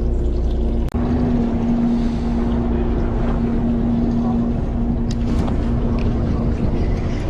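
Fishing boat's engine running steadily, a constant low drone, with some wind on the microphone.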